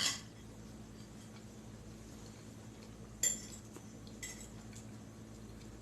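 Eating utensil clinking against a dish three times: once at the start, then about three seconds in and again about a second later, the second clink ringing briefly.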